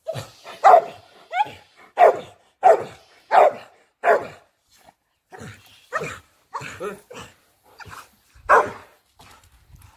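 A dog barking in a steady string, about a dozen barks spaced roughly half to three-quarters of a second apart, with a short pause near the middle. A brief rising whine comes about a second and a half in.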